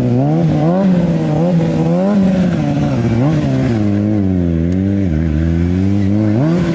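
Sport motorcycle engine revving up and down over and over, its pitch rising and falling about once a second, as the throttle is worked to hold the bike up on its rear wheel in a wheelie.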